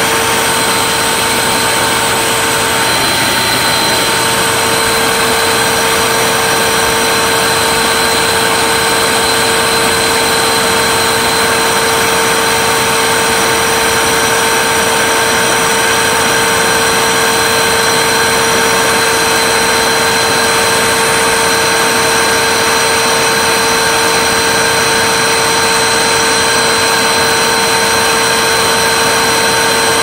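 Hoover WindTunnel 3 High Performance upright vacuum cleaner running steadily at full speed: a loud, even motor whine over a rushing airflow, holding the same pitch.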